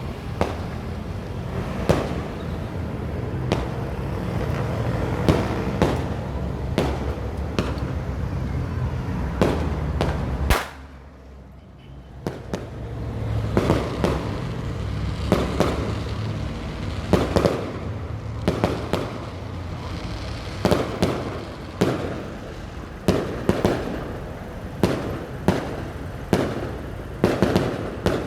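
Fireworks display: aerial shells bursting in a rapid, irregular string of sharp bangs over a steady low rumble. About ten seconds in the sound drops away abruptly for a couple of seconds, then the bursts resume, coming thick and fast toward the end.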